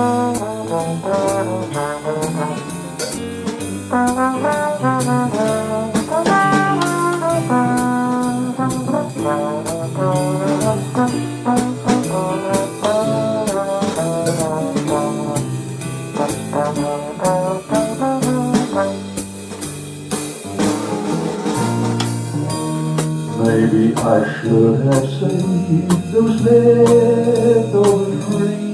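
Small jazz group playing a slow ballad: a trombone carries the melody over piano, double bass and a snare drum. Near the end a man's voice comes in singing.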